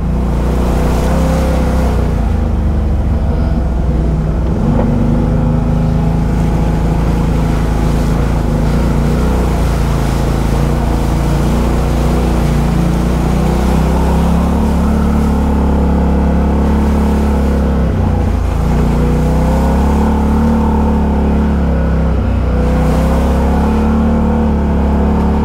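Side-by-side off-road vehicle's engine running steadily while driving along a trail, easing off briefly twice in the second half.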